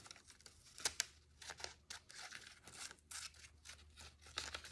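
Scissors snipping through a sheet of paper, an irregular run of short snips, several a second, with paper rustling as the sheet is turned.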